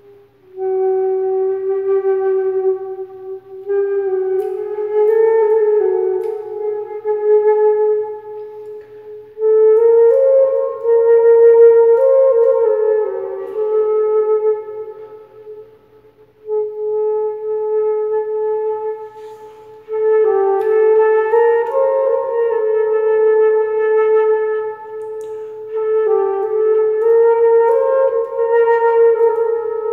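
Slow, simple melody on a flute played with one hand, in phrases of a few seconds with short breaks for breath between them.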